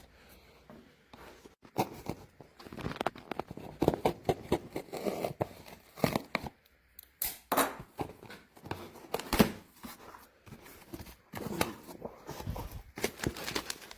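A cardboard shipping box being torn open by hand: irregular tearing, crinkling and rustling of cardboard and packing material.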